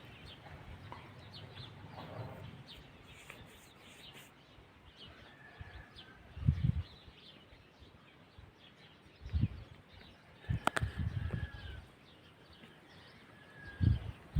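Birds calling outdoors, with many faint chirps and a few short held calls. Several brief gusts of wind buffet the microphone, and there is one sharp click about two-thirds of the way in.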